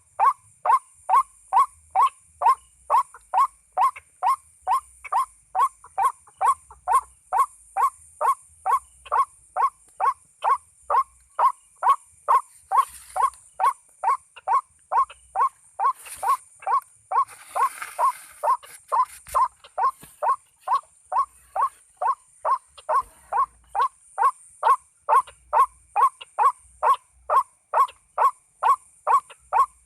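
White-breasted waterhen calling, short notes repeated steadily about twice a second, the call used to lure waterhens into a trap. A brief rustling noise about halfway through.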